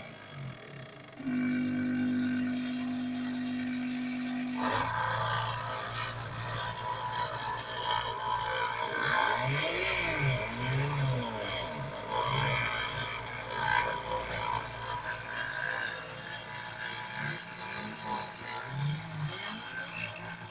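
Homemade mini CNC router at work: its stepper motors whine in steady tones, then in rising and falling pitches as the axes speed up and slow down. From about five seconds in, a louder rasping joins as the small printer-motor spindle's teardrop Dremel cutter engraves the plywood.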